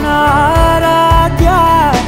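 Background music: a melodic lead line over a steady drum beat.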